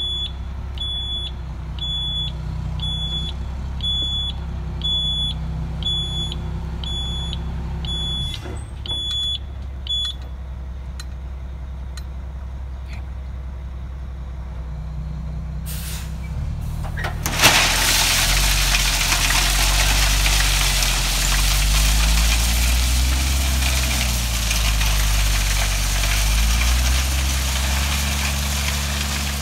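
Loaded dump truck backing up, its reverse alarm beeping about once a second over the running diesel engine; the beeping stops about ten seconds in. About seventeen seconds in, gravel starts pouring out of the opened tailgate as the truck spreads its load, a loud steady rushing hiss over an engine that rises and falls.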